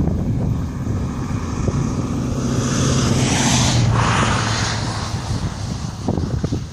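Low rumbling wind noise on the microphone, with a vehicle passing close by: its engine tone and tyre hiss swell from about two seconds in, peak near four seconds and then drop away.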